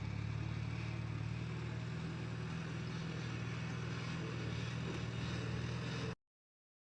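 An engine running steadily at an even speed, then cutting off suddenly about six seconds in.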